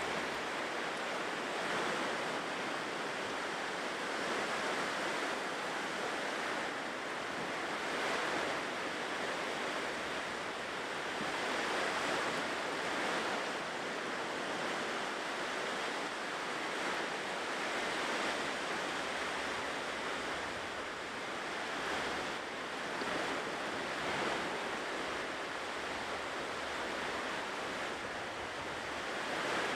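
Ocean surf washing continuously on a shore, swelling and easing every few seconds.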